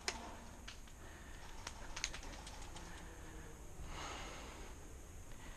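Quiet movement of a player and his gear among hay bales: scattered light clicks and rustles, the sharpest about two seconds in, and a short rushing sound about four seconds in, over a faint steady high hiss.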